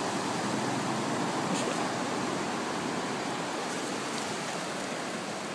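Ocean surf breaking and washing up the beach: a steady, even rush that swells a little in the first couple of seconds and eases off slowly.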